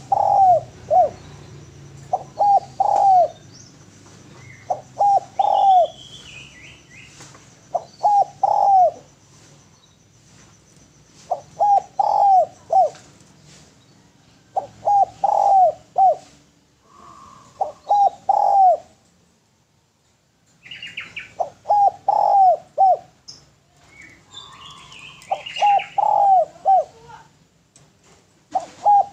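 Spotted dove cooing: a short phrase of three or four coo notes, repeated about every three seconds. Other small birds chirp faintly at times, higher up.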